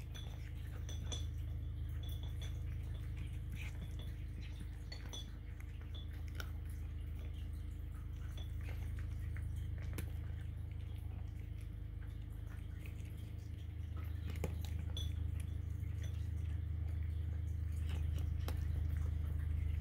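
A cat crunching dry kibble: irregular crisp crunches and small clicks of kibble against the tray, over a steady low hum that grows a little louder in the second half.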